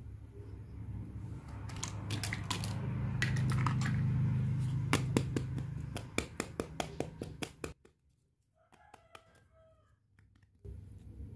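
Hard plastic toy makeup pieces handled close to the microphone: a low rubbing rumble, then a quick run of sharp plastic clicks, about five a second, that stops suddenly.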